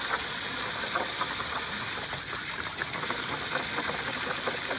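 Steady hiss of spraying water, with small splashes as a dog snaps at the spray.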